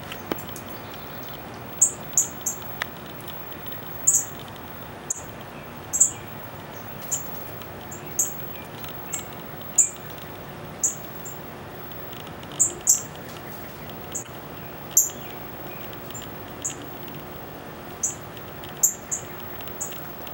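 Northern cardinals giving short, sharp, high-pitched chip calls, repeated irregularly about once a second and sometimes in quick pairs.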